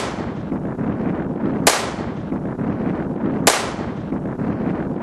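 Bruni Glock 8mm blank-firing pistol firing blank cartridges: two sharp shots about two seconds apart, each with a short fading tail, over steady background noise.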